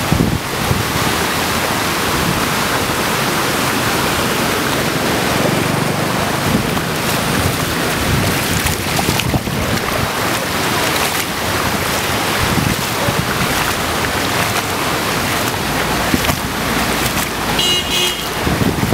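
Steady rush and splash of floodwater over a road as the camera moves through it, with wind buffeting the microphone. A short high-pitched tone sounds near the end.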